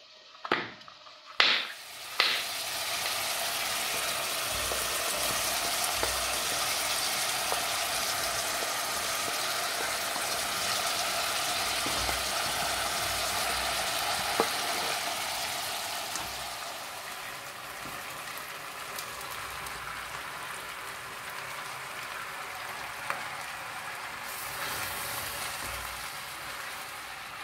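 A few knife cuts on a wooden cutting board, then a steady sizzle of meat frying in a steel pot, growing somewhat quieter after about halfway.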